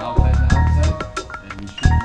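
Background music with a steady beat: heavy bass hits, sharp drum strokes and pitched melodic notes.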